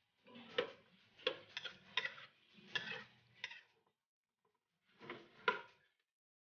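Metal spatula scraping and knocking against the side of an aluminium pot as chicken pieces are stirred, in a quick run of uneven strokes, a pause, then two more strokes near the end.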